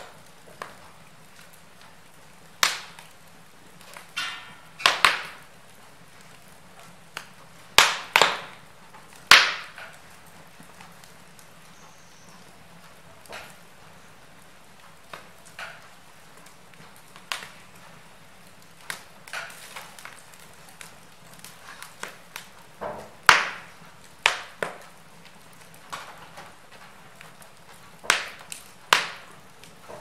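Wood logs burning in an open fireplace, crackling with sharp, irregular pops over a faint steady hiss. A few louder snaps stand out every several seconds.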